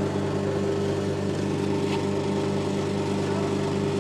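Steady mechanical drone of a hydraulically powered crude-tank sludge-cleaning robot's machinery running, an even engine-like hum with a few constant tones.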